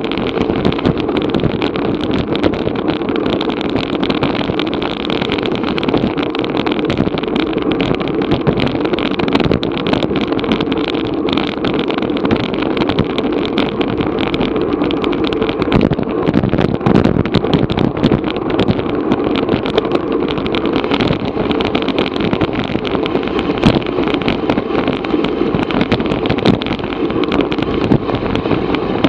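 Steady wind rushing over an action camera's microphone on a racing bicycle at speed, with many small crackles and knocks throughout.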